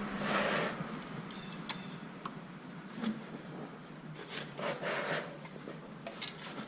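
Scattered light clicks, taps and scrapes of hand tools on bicycle parts as bolts are worked on.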